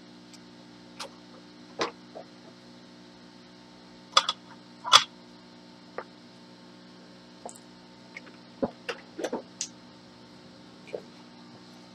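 Small tools and objects being picked up and set down on a workbench: scattered sharp clicks and clatters, the loudest about four and five seconds in, over a steady electrical hum.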